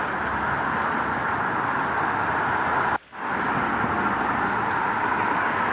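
Steady rain with road traffic running through it. About three seconds in the sound cuts out abruptly for a moment, then fades back in.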